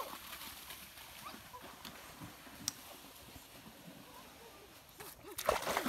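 A quiet stretch with a few faint knocks and a click, then water splashing loudly near the end.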